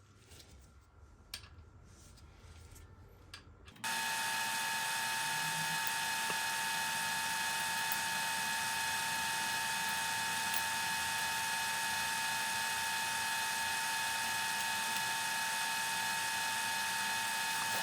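Faint clicks, then from about four seconds in the steady whine of a small electric motor, holding one even pitch and level until it stops suddenly at the end.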